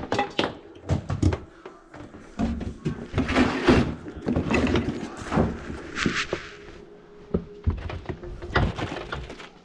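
Handling noise of tools and gear being moved and set down on a tile floor by an open under-sink cabinet: a quick run of knocks and clunks with rustling between them. A faint steady hum comes in about halfway through.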